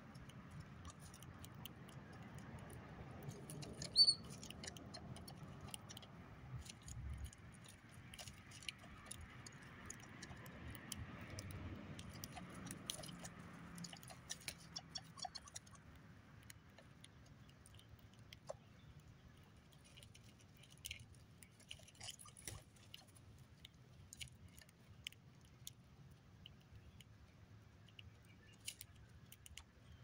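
Grackles and brown-headed cowbirds feeding at a wooden feeder: scattered faint clicks and taps of beaks picking and cracking sunflower seeds, with one short high chirp about four seconds in.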